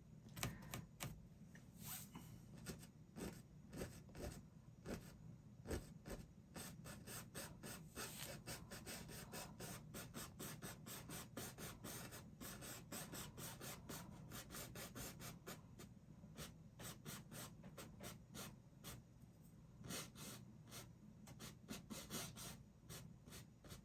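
Paintbrush stroking and dabbing on canvas in many quick, short, faint strokes. The strokes come thickest in the middle stretch.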